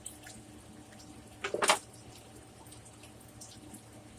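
Faint wet chewing and mouth clicks from someone eating crisp cheese taco shells, with one short louder mouth sound about a second and a half in.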